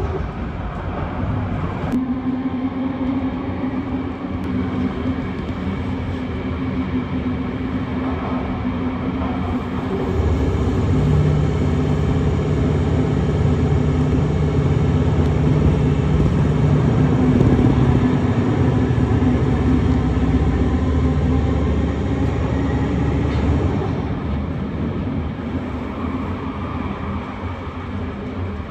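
Interior of a British Rail Class 318 electric multiple unit running at speed through a tunnel and past stations without stopping. Steady rail running noise with a low hum, growing louder about a third of the way in and easing off near the end.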